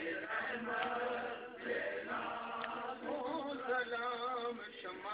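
Male voices chanting a naat, Urdu devotional verse in praise of the Prophet, in long wavering melodic lines that break off briefly between phrases.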